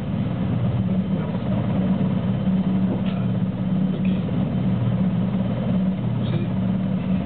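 NH90 helicopter's twin turboshaft engines and spinning rotors running steadily on the deck, a loud, even drone.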